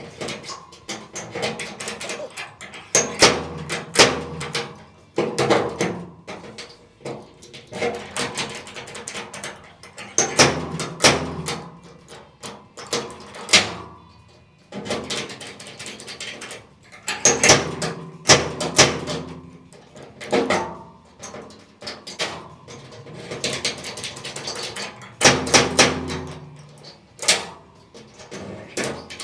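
Dent-pulling work on the steel wheel-arch panel of a truck bed: clusters of sharp metallic clacks and knocks, a second or two each, repeating with short pauses as the caved-in panel is pulled out.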